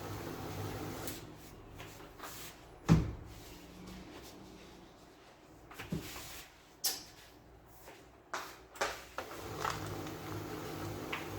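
HP LaserJet P1102 laser printer running with a steady low hum that stops about a second in. A sharp knock comes about three seconds in and several lighter clicks and knocks follow, like covers or parts being handled, and the hum starts again near the end.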